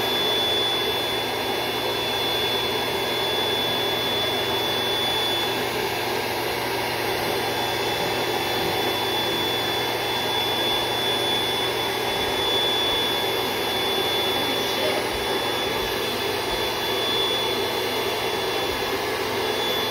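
Built-in electric pump of an air mattress running steadily as it inflates the mattress: an even blowing whir with a thin high whine over it.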